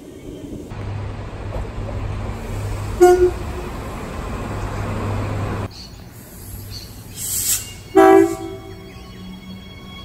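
Transperth electric train horns giving two short toots, one about three seconds in over the rumble of a train running by, and a louder one about eight seconds in from a B-series railcar at a platform, just after a brief hiss.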